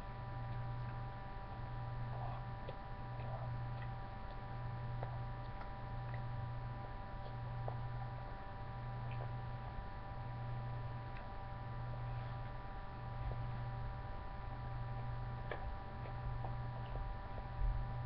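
Steady low electrical hum that swells and dips evenly about every one and a half seconds, over a few thin steady high-pitched tones, with faint scattered ticks.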